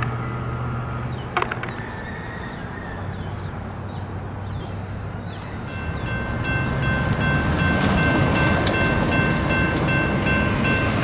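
Approaching F40PH-3C diesel locomotive on an Altamont Corridor Express commuter train: a low rumble grows from about six seconds in, with a steady chord of several high tones sounding over it.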